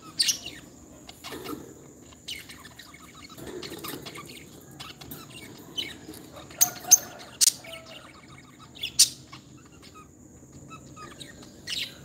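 Lovebirds giving short, sharp, high-pitched chirps, scattered at first and then several in quick succession past the middle, with brief wing flutters.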